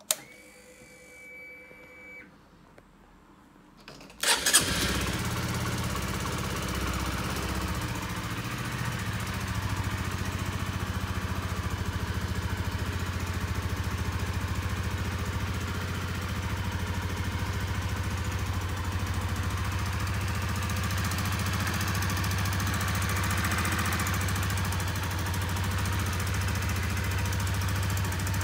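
Honda CBR125R's single-cylinder four-stroke engine: the ignition key clicks on and a short electric whine sounds for about two seconds, then about four seconds in the starter turns it over and the engine catches at once and settles into a steady idle.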